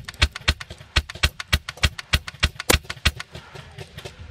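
Airsoft rifle firing a rapid string of single shots, about four a second, sharp clicking reports for some three seconds before they thin out.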